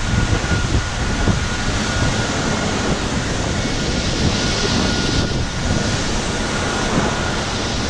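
Steady rush of wind and rough sea on an open fishing boat, with the boat's engine running underneath and a thin steady whine.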